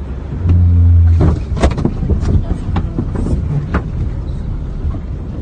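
Loud, steady low rumble of rushing floodwater. A low hum sounds for about a second near the start, followed by a series of sharp knocks and clatters over the next few seconds.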